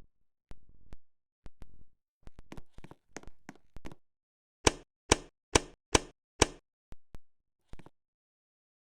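Badly wobbling ceiling fan knocking and clicking at its mount, irregular at first. About halfway through come five sharp, loud knocks roughly half a second apart, then a few softer clicks.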